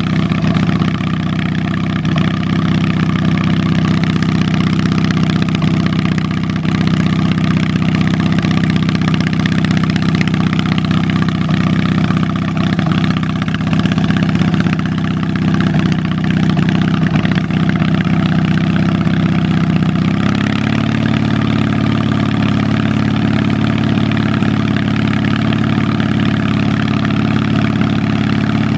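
A 1983 Yardman MTD garden tractor's engine running steadily while the tractor drives across grass, heard up close from the seat. About twenty seconds in, the engine note shifts slightly and then holds steady again.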